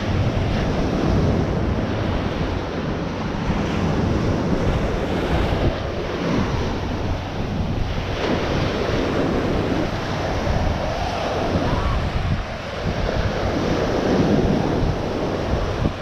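Ocean surf breaking and washing up the sand, mixed with wind buffeting the microphone.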